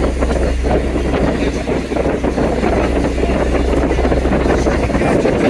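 Steady low drone of a fishing boat's engine running, with wind buffeting the microphone.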